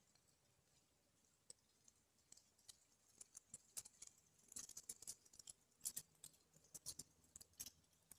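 Near silence broken by faint, scattered sharp clicks that come more often from about three seconds in.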